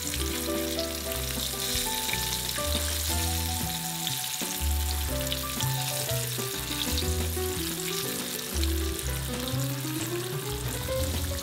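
Flour-coated firm tofu slabs shallow-frying in a pan of hot oil, a steady sizzle with fine crackling as the oil bubbles around them. Background music plays underneath, with a pulsing bass line.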